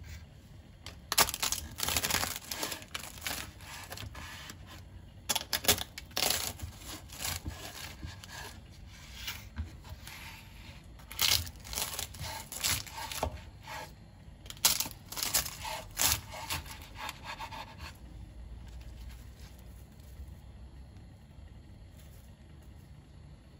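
Kitchen knife cutting through crisp, flaky air-fried yufka pastry (gözleme) on a wooden cutting board: repeated crackling, crunching cuts in bursts, stopping about eighteen seconds in.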